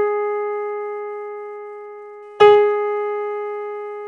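A single keyboard note, the A tuned to about 415 Hz (the lower Baroque pitch), struck twice. The second strike comes about two and a half seconds after the first, and each one rings and slowly fades.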